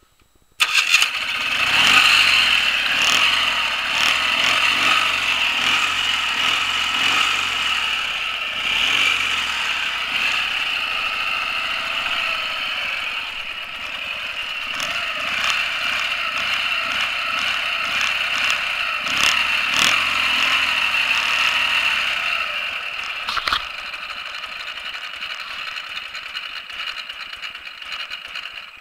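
Ural 750 sidecar motorcycle's flat-twin engine starting abruptly about half a second in, then running steadily, a little quieter over the last few seconds.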